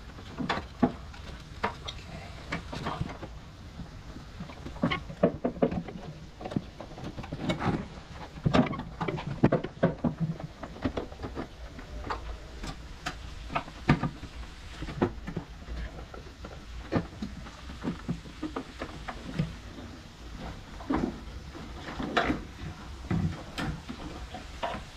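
Irregular clicks and knocks of hands working in a car's engine bay, working the brake master cylinder and ABS module assembly loose and lifting it out.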